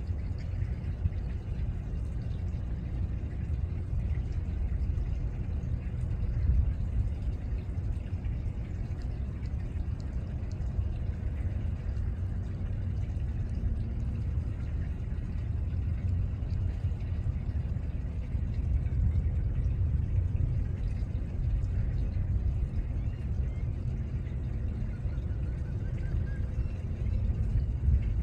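A steady low rumble of outdoor background noise, wavering a little in loudness.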